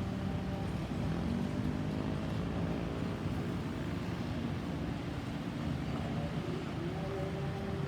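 Road traffic running past: a steady rumble of engines and tyres with faint engine tones. A steady hum joins about six and a half seconds in.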